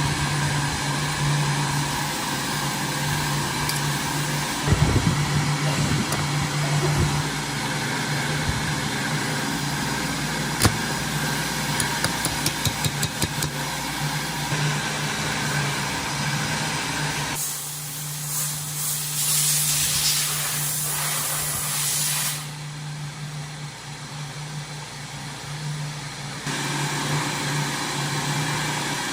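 Small lawn mower engine running steadily, with a few seconds of loud hiss about two-thirds of the way through.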